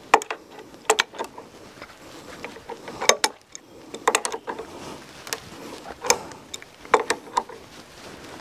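Ratchet wrench clicking in short runs about once a second, tightening a nut onto a girder's anchor rod.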